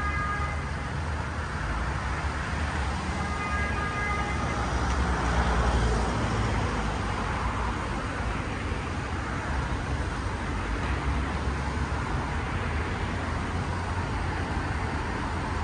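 City street traffic noise: a steady wash of passing cars with a low rumble. A few thin, steady high tones sound twice in the first four or five seconds.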